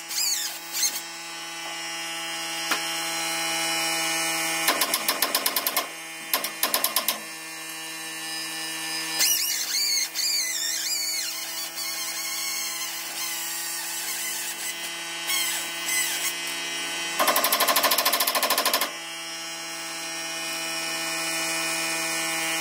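Pneumatic impact wrench hammering in rapid bursts on the rear leaf-spring bolts of a Chevy OBS pickup, undoing them to take the springs down. There are two short bursts about five and six seconds in and a longer one around seventeen seconds, over a steady hum.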